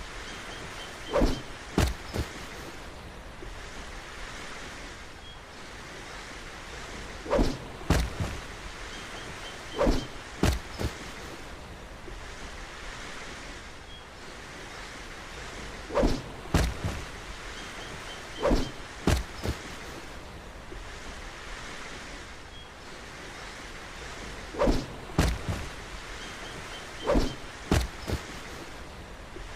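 Throwing knives hitting a target with dull thunks, mostly in pairs about half a second apart and repeating every few seconds, over a steady hiss.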